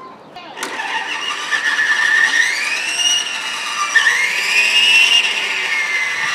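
Large counter-rotating twin-rotor RC helicopter's motors and gears whining. The pitch rises and falls as the throttle is worked up and down.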